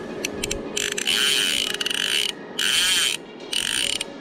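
Fly reel's ratchet drag buzzing in three spurts, one of about a second and a half and two shorter ones, after a few quick clicks. This is the reel working against a hooked coho salmon during the fight.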